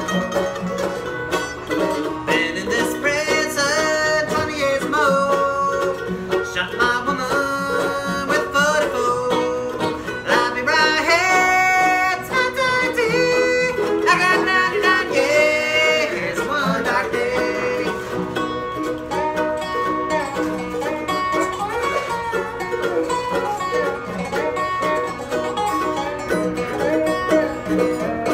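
Bluegrass string trio playing a tune: a lap-played resonator guitar (dobro) with sliding notes over mandolin and strummed acoustic guitar.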